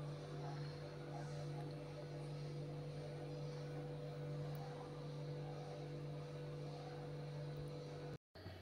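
Steady low electrical hum over faint room noise, unchanging until it cuts off abruptly near the end.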